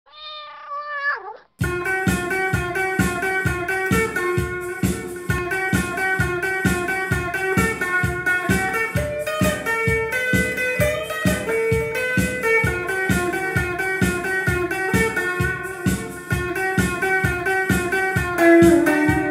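Intro music on plucked strings, guitar-like, picking notes in a quick, even rhythm. It opens with a brief wavering high tone lasting about a second before the music comes in.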